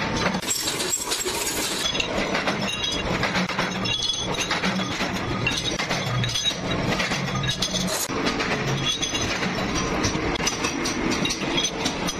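Workshop machinery running steadily, with many irregular metallic clinks and clanks of steel parts.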